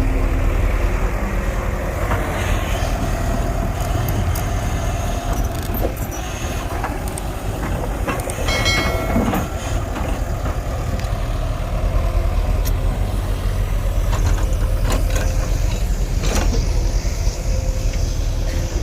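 Diesel engine of heavy earth-moving machinery running steadily, with a few scattered knocks and a brief high squeal about nine seconds in.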